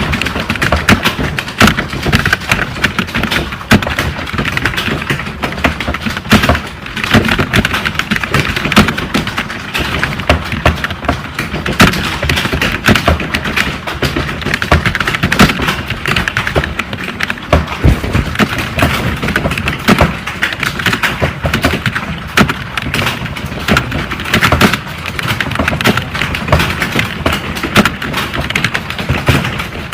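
Fast, continuous typing on a computer keyboard: a rapid, uneven stream of key clicks with no pauses, as in a timed typing test.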